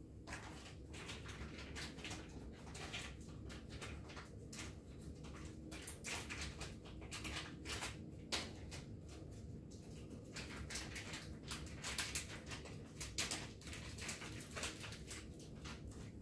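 Plastic and cardboard product packaging being opened by hand: irregular crinkling, rustling and small ticks.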